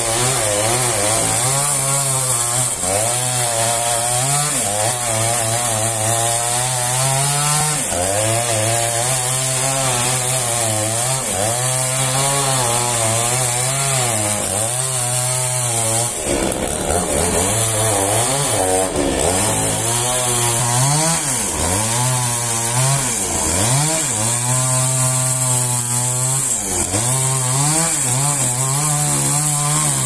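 Two-stroke petrol chainsaw cutting into a large trembesi (rain tree) log, its engine pitch rising and dropping every second or two as the chain loads up in the wood and frees again. About halfway through the revs sag briefly, then climb back.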